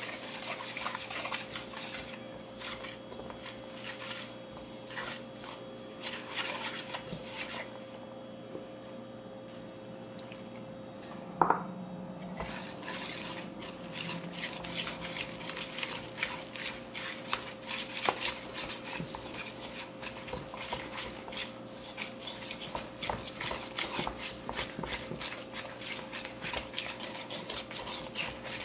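Wire whisk stirring flour and water in a stainless steel mixing bowl, clicking and scraping against the metal as it works the mix into a thick batter. The whisking eases off for a few seconds about a third of the way in. A single sharp knock comes a little before halfway, and then the whisking resumes faster and denser.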